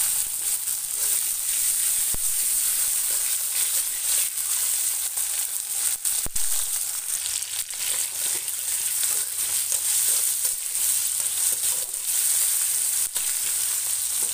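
Chopped tomatoes, green chillies and garlic sizzling steadily in hot oil in a kadai. A metal spatula stirring them scrapes and clicks against the pan a few times.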